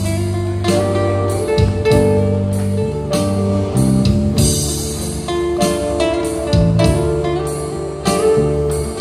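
Live band playing a pop ballad: guitar over bass guitar and drums, with regular drum and cymbal hits.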